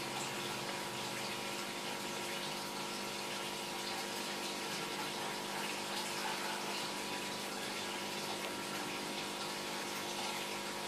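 Steady rushing hiss with a steady low hum under it that does not change.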